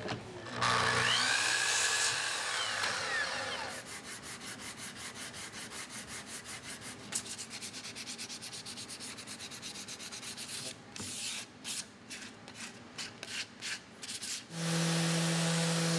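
A sliding miter saw finishes an end cut in the first few seconds, its blade pitch sweeping as it spins. Then sandpaper is rubbed by hand along the walnut board's edge in quick even strokes, about four a second, slowing to irregular strokes. Near the end, an electric random orbital sander starts and runs with a steady hum.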